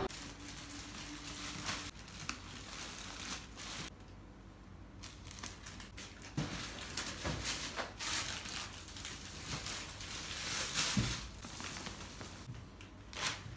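Plastic shopping bags and clear plastic packaging crinkling and rustling as they are handled, in irregular bursts with a short quiet pause partway through.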